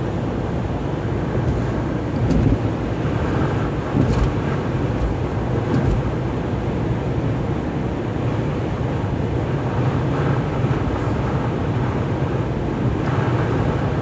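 Steady drone of the engine and tyres, heard from inside a vehicle's cab at highway speed.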